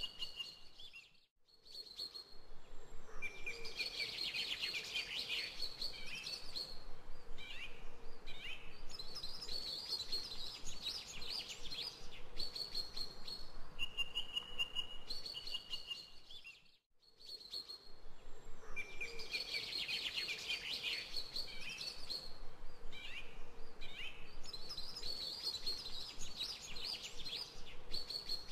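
Birds chirping and singing with high trills and steady whistled notes. It is a background recording that repeats about every fifteen seconds, with a brief drop-out each time it starts over.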